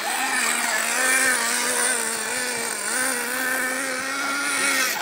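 Radio-controlled truck's motor buzzing under throttle. Its pitch holds fairly even, with brief dips as the throttle eases.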